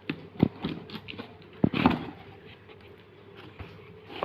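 Package being handled and opened by hand: scattered crinkles, taps and scrapes of packaging, busiest with a louder rustle about two seconds in, then sparser.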